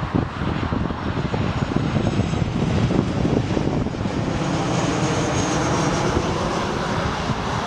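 Jet airliner's engines running as it passes, a loud steady noise with a faint high whine about four to six seconds in, over wind buffeting the microphone.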